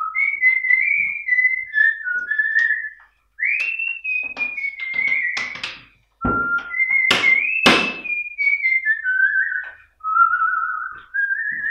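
A person whistling a tune in phrases with short pauses, the pitch sliding up and down, with several sharp knocks between about five and eight seconds in.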